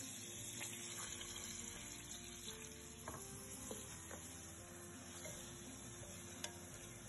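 Sliced onions sizzling in hot sunflower oil in a pan, a steady hiss, with a few light clicks of a spoon stirring them against the pan.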